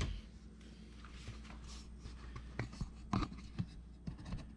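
A thump at the start, then scattered light knocks, clicks and rubbing as hand tools and disposal parts are handled, over a steady low hum.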